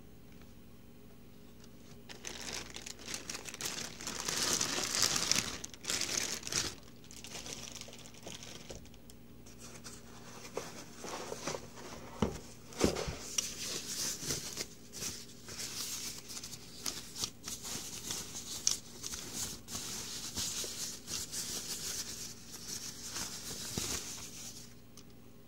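Plastic packaging crinkling as parts are unwrapped and lifted out of a foam-packed cardboard box, with a few knocks about halfway through.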